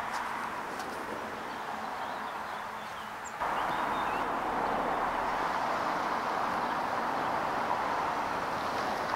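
Steady roar of passing road traffic, with a few faint bird chirps over it. The noise jumps suddenly louder about three and a half seconds in and then holds steady.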